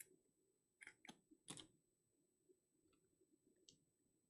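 Faint clicks and rustles of trading cards and foil packs being handled, a few soft snaps between one and two seconds in and another near the end.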